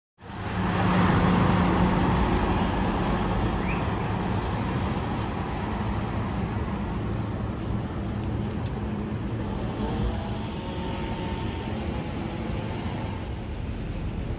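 Road traffic: a steady mix of vehicle engines and tyre noise with a low engine hum, loudest in the first couple of seconds.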